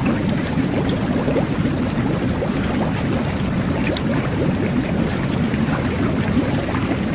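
Jet bath (whirlpool tub) running: water churned by the jets in a steady low rush, with many small bubbles gurgling and popping throughout.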